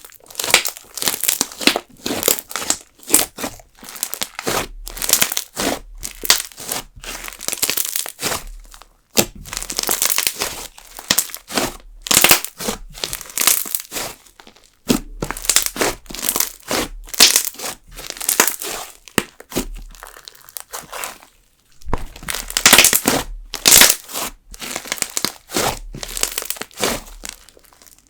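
Jelly slime mixed with sugar beads being stretched, folded and squeezed by hand into a fluffy mass, giving irregular runs of crackling air-bubble pops and crunches with brief pauses between handfuls.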